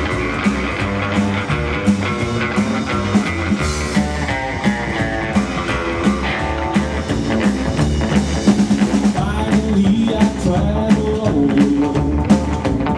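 Rockabilly trio playing live: electric guitar, upright double bass and drum kit in an instrumental passage without singing, over a steady drum beat.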